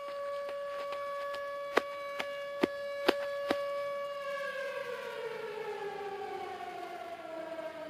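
Air-raid siren sounding on one steady pitch, then winding down with falling pitch from about halfway through. Several sharp clicks or knocks sound over it in the first half.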